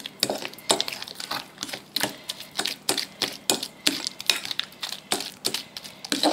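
Metal fork beating egg into creamed butter and sugar in a ceramic bowl, its tines clicking against the bowl about three or four times a second in a steady rhythm.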